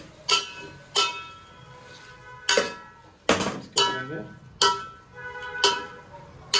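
Metal spoon knocking and scraping against a large aluminium cooking pot while stirring chopped vegetables. About seven ringing clanks come at irregular intervals.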